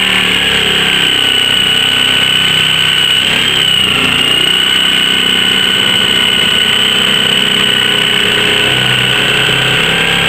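Corded electric jigsaw running steadily as its blade saws through a plastic cooler lid, the motor's high whine dipping briefly about four seconds in.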